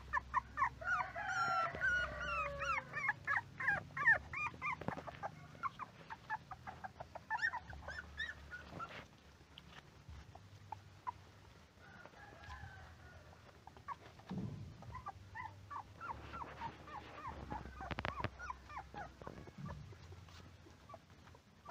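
Puppies whimpering and squealing in quick, short, high-pitched cries, many in a row. The cries come thickest in the first few seconds, then die down and return near the end.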